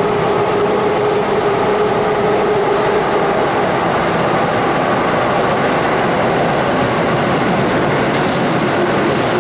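Keihan 2400-series electric train running into an underground station through the tunnel: a loud, steady rumble of wheels and motors, with a faint held hum, echoing off the concrete.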